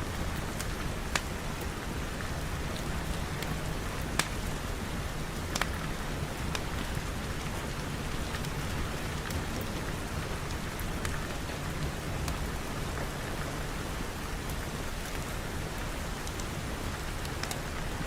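Steady rain falling, an even hiss, with a few sharp clicks standing out about one, four and five and a half seconds in.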